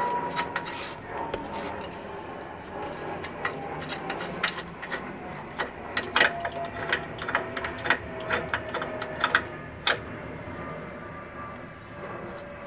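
Irregular sharp metallic clicks and clinks, thickest in the middle, as the steel through-bolt of a Dodge Neon's engine-transmission anchor mount, with its nut and washer, is worked loose and slid out of the mount bracket by hand.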